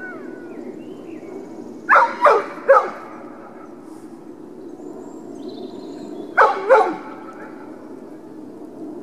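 A dog barking in short volleys: three quick barks about two seconds in, then two more about six and a half seconds in.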